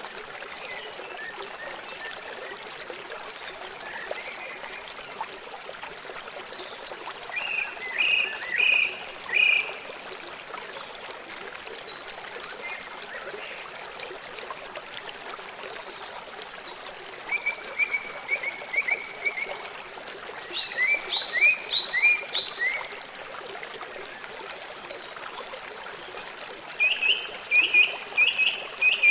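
A stream trickling and flowing steadily, with a bird singing four short phrases of quick, repeated high notes over it.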